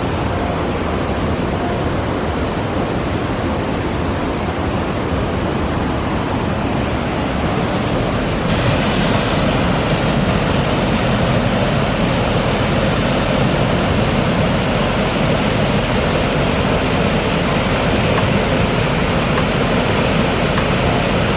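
Steady rushing of water from Tahquamenon Falls. About eight seconds in, it becomes brighter and a little louder.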